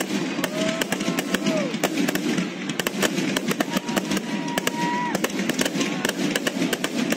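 Aerial fireworks finale: a rapid, dense string of shell bursts and crackling with no pause, with a few drawn-out tones lasting about a second each above it.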